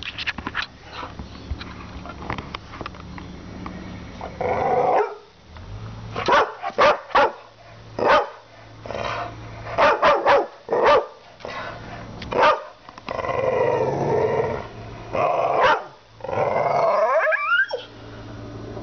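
American/English Staffordshire terrier cross barking in short sharp volleys, alternating with drawn-out growling grumbles. The barking starts after a few quieter seconds, and one long grumble near the end rises in pitch.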